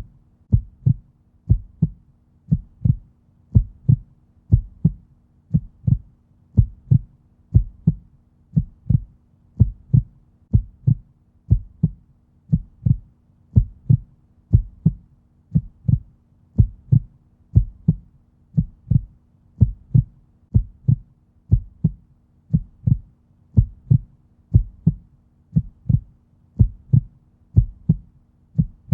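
Heartbeat at a resting pace: a steady lub-dub, one double beat about every second, deep and low.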